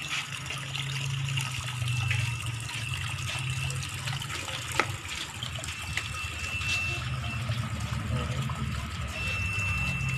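Tap water pouring steadily into a large plastic tub, splashing onto the water already in it. A single sharp knock about five seconds in, from a knife working fish on a wooden board.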